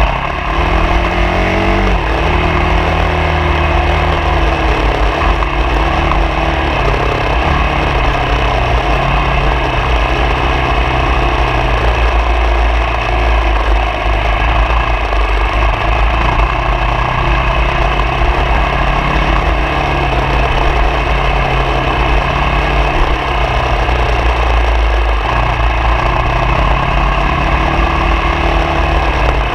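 Off-road vehicle's engine running on the move, its pitch rising and falling as the speed changes, over a steady low rumble.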